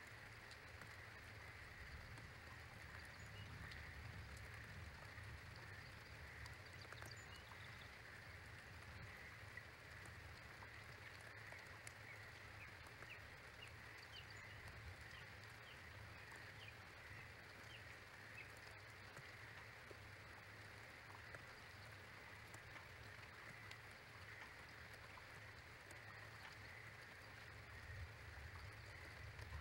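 Faint outdoor ambience after a rainstorm: scattered raindrop ticks over a low steady rumble, with a few faint bird chirps through the middle.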